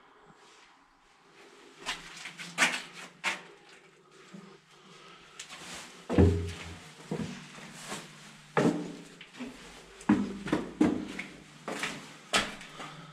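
Irregular footsteps, about ten knocking steps with some heavier thuds, on wooden floorboards and concrete, echoing in a small concrete bunker room. A faint low steady hum runs underneath from about two seconds in.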